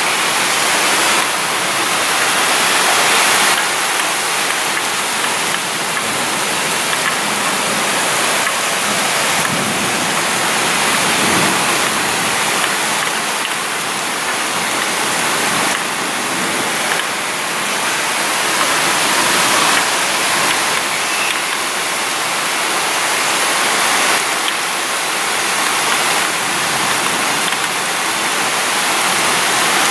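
Heavy thunderstorm rain pouring down, a loud, steady hiss that swells and eases slightly.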